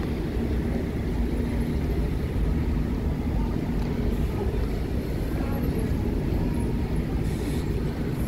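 Steady low rumble of city road traffic, with double-decker buses and a black cab running, and a faint steady engine hum in the first few seconds.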